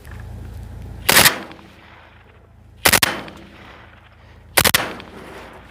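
RPK light machine gun firing on automatic in three short bursts of two or three rounds each, spaced under two seconds apart, each followed by a brief echo.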